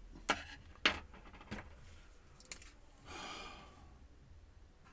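Four sharp clicks of a screwdriver and screws being handled against a laptop's plastic case, then a short sigh about three seconds in.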